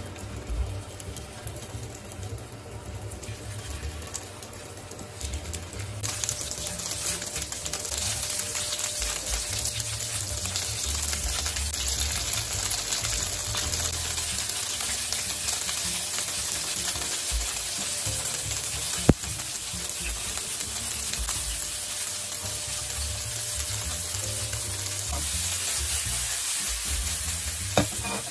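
Egg-and-cornstarch-battered fish fillet pieces sizzling as they shallow-fry in hot oil in a frying pan. The sizzle gets louder about six seconds in and stays dense. Two sharp clicks come about two-thirds through and near the end.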